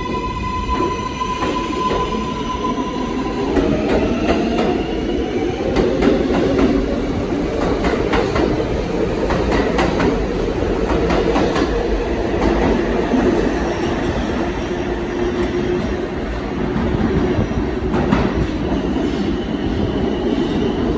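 Kawasaki R142A subway train pulling away. A steady tone cuts off after about three and a half seconds, then the motor whine rises in pitch as the train gathers speed, over a rumble of wheels clacking over rail joints.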